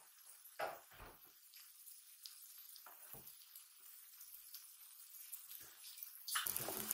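Yakisoba noodles frying on an electric griddle with a steady sizzle, while metal spatulas scrape and tap against the hot plate a few times. Near the end the sizzle suddenly gets much louder as the spatulas work the noodles.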